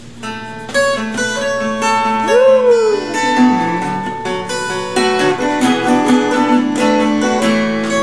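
Seagull Entourage Grand parlor acoustic guitar with a solid cedar top and wild cherry back and sides, capoed and played fingerstyle: a steady stream of picked notes and chords ringing out.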